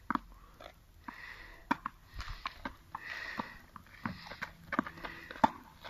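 Tennis ball play on a hard court: a string of sharp knocks from racket strikes and ball bounces, the loudest about a second and a half in and near the end, with short breathy noises between them.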